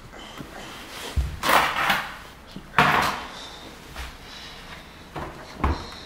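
Several separate knocks and thumps, the sharpest and loudest about three seconds in, like a door or drawer being opened and shut.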